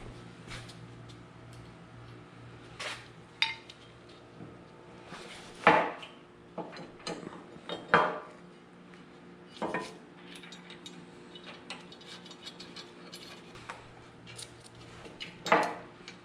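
Hand tools and steel parts working on a Humvee frame: a string of separate metal clanks and ratchet-like clicks, the loudest about six and eight seconds in, over a steady low hum.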